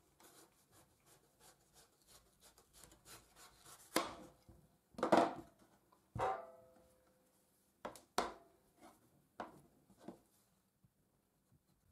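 Kitchen knife cutting into a whole black radish on a board: faint scraping ticks at first, then a series of sharper knocks as the blade goes through and strikes the board, one of them with a brief ring.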